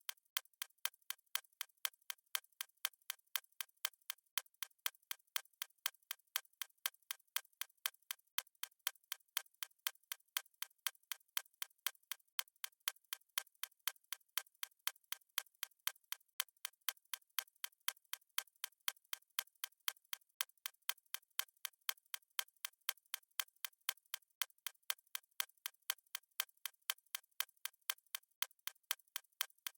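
Clock-style ticking sound effect of a countdown timer: crisp, even ticks at about two a second, marking the seconds of the countdown.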